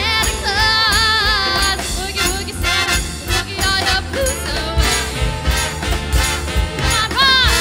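A live big band with strings and a female lead singer performing an upbeat boogie-woogie swing Christmas song, with held vibrato notes in the melody.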